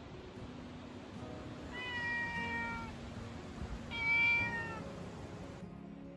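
Domestic cat meowing twice, two drawn-out calls about two seconds apart, the second louder.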